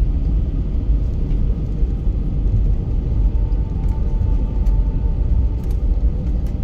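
Steady low cabin rumble of an Airbus A320neo on the ground after landing, heard from inside the cabin. A faint steady tone comes in about halfway through.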